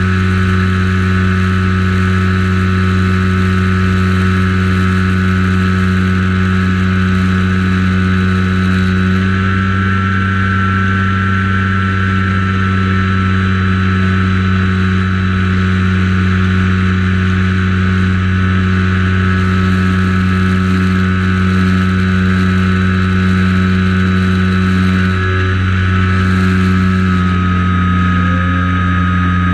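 Light aircraft's propeller engine droning steadily in flight. Its pitch rises slightly about nine seconds in and drops slightly near the end.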